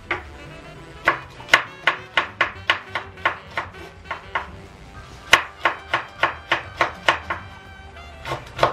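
Kitchen knife mincing green chili peppers on a wooden cutting board: quick, slightly uneven taps about three to four a second, with a short pause near the middle. Background music plays underneath.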